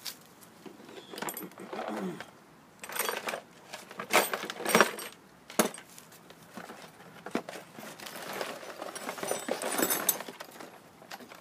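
Irregular metallic clinks, rattles and scrapes of hand tools being handled, loudest about four to five seconds in.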